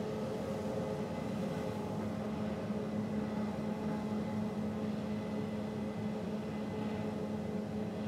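Harvest machinery, most likely a combine harvesting corn, running steadily: an unbroken engine-and-machinery drone with a constant low hum.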